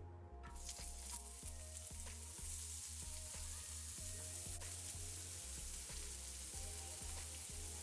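Chopped onion, garlic and grated ginger sizzling steadily as they sauté in hot oil in a pan, the sizzle starting just after the start. Soft background music with a steady low beat runs underneath.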